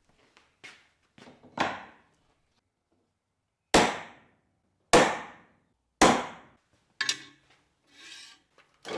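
Hammer strikes in a workshop: a few light taps, then three hard blows about a second apart, each ringing briefly, followed by two softer knocks.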